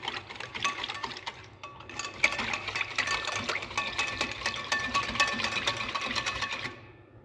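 A wire whisk beating a thin mix of water, oil and sugar in a glass bowl: rapid, continuous clicking of the wires against the glass with a faint ring from the bowl. It gets faster and louder about two seconds in and stops near the end.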